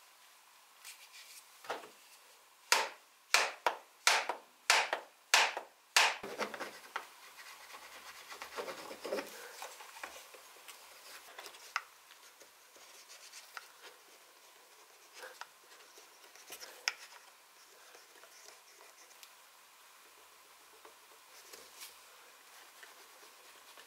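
Leather being worked by hand against a shaped wooden form: a run of about seven sharp knocks, roughly two a second, a few seconds in, then rubbing and light scratching of leather on wood.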